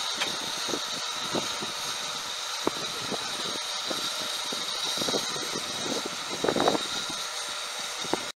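Narrow-gauge steam locomotive standing, with a steady hiss and scattered metallic clanks and knocks. A cluster of louder knocks comes about six and a half seconds in.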